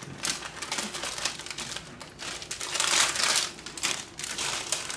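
Individually wrapped banana wafer cookie pack crinkling as it is handled and opened, loudest about three seconds in.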